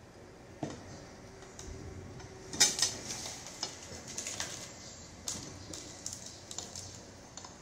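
Plastic knife and fork clicking and scraping against a plate as food is cut, in a run of irregular taps with one louder clatter about two and a half seconds in.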